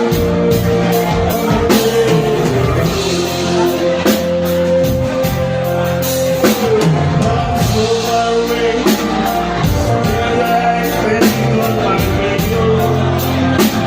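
A voice singing long held notes over a rock band with a steady drum beat.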